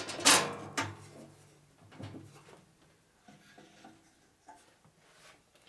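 A bandsaw blade being worked by hand into a Boice Crane bandsaw's table slot and guides: a sharp metal clank just after the start and another a little later, then faint light knocks and rubbing.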